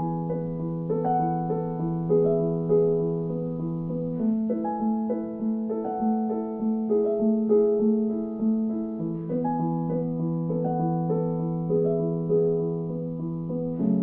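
Background piano music: single notes of a melody over low held notes that change about every five seconds.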